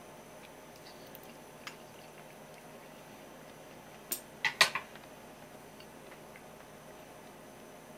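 Chopsticks clinking against ceramic tableware: a quick cluster of four sharp clinks about halfway through, with a faint tick or two before, over a low steady room hum.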